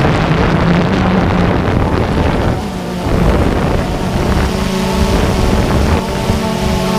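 Drone's electric motors and propellers whirring, picked up by its on-board camera, with wind buffeting the microphone. The hum shifts in pitch and dips briefly about three seconds in.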